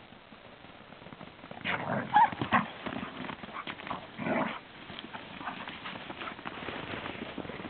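Two Ibizan hounds play-fighting, with short bursts of play growling that are loudest about two seconds in and come again about four seconds in, over light thuds of running paws on sand.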